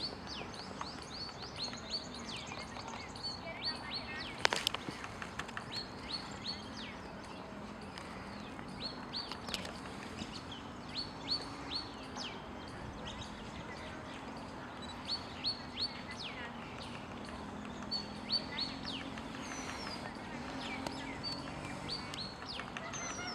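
Small birds chirping with short, quick, downward-sliding high notes, repeated in runs throughout. A sharp knock about four and a half seconds in stands out as the loudest sound, with another near ten seconds.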